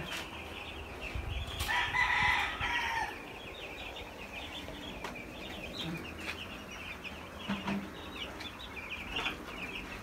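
A flock of young chicks peeping continuously, many short high peeps at once. One louder, longer call stands out between about one and a half and three seconds in.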